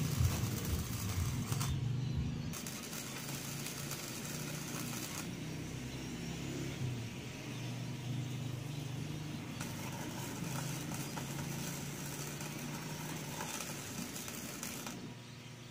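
Powerhouse gasless flux-core MIG welder laying a weld to join steel nuts to a sprocket: a steady arc noise with a low mains hum under it, stopping near the end.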